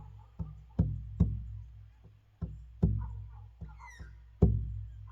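Bodhrán, an Irish frame drum, played like a medicine drum: slow single beats in uneven groups of two or three. Each beat is a deep boom that rings on and fades.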